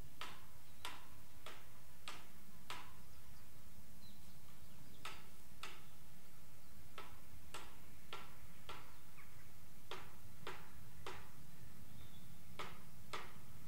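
Distant Bulleid 'Battle of Britain' class steam locomotive working, its exhaust beats heard as sharp chuffs about every 0.6 s, in uneven runs with a few beats missing, over a steady low rumble.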